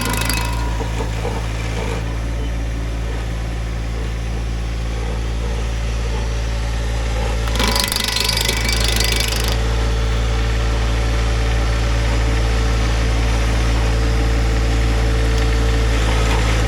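Tractor-driven stump grinder running steadily, the tractor engine and spinning 24-inch grinder disc making a low steady hum. The carbide-toothed disc bites into the stump in a burst of hissy chip-throwing grinding about eight seconds in and again near the end.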